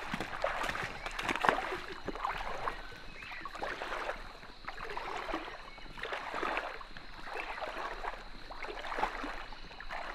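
Footsteps on the forest floor at a steady walking pace, about one and a half steps a second, each step a short rustling crunch, with clothing swishing in between.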